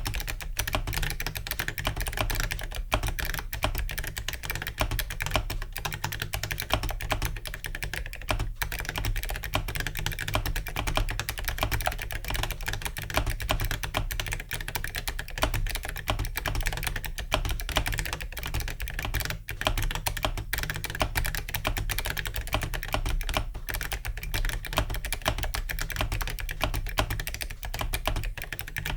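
Continuous fast typing on a mechanical keyboard with metal keycaps on ZealPC Clickiez switches: a dense, unbroken stream of keystroke clicks.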